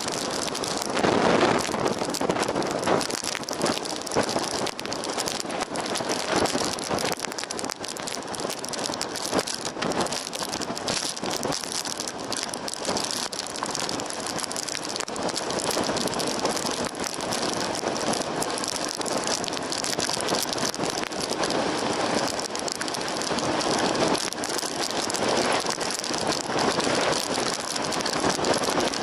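Strong wind buffeting the microphone of a camera on a motorcycle riding at freeway speed in rain: a loud, steady rushing noise that swells and dips in gusts, with no clear engine note.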